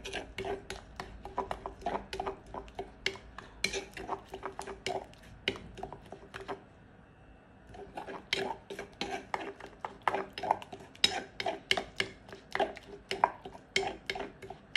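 Spoon stirring a chili-garlic dressing in a pot, clinking and scraping against its sides several times a second, with a short pause about halfway through.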